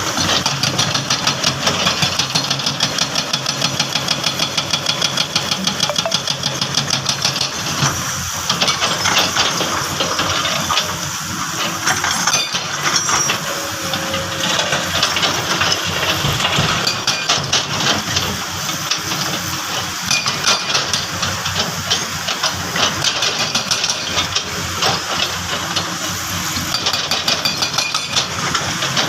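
Diesel engine of heavy construction machinery, a truck or excavator, running steadily with a fast, even clatter.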